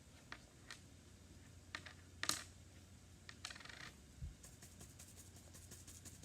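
Faint handling noises of art supplies on a tabletop: scattered light clicks and taps, one sharper click about two seconds in, a brief scrape about a second later and a soft thump just after.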